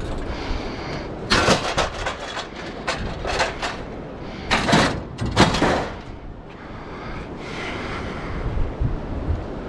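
Metal clanking and rattling in several bursts as an appliance door whose hinges don't come off is yanked and worked at. Wind rumbles on the microphone throughout.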